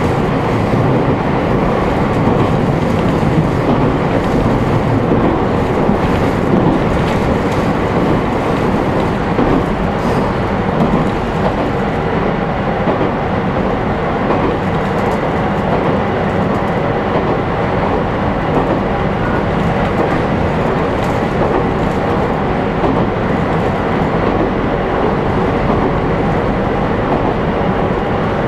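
Interior running sound of an ET127 series (ex-JR E127) electric multiple unit with a Toyo GTO-VVVF traction inverter, travelling at a steady speed. Wheels rumble on the rails, with a few faint steady tones over the din.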